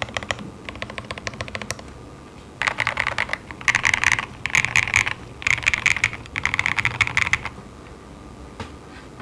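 Typing on a Monokei TGR Tomo custom mechanical keyboard with lubed JWK Peach Bloom switches on an aluminium top-mount plate: a stretch of steady typing, a short pause, then about five louder, faster runs of keystrokes before the typing stops near the end. A faint electrical buzz from a faulty XLR cable runs underneath.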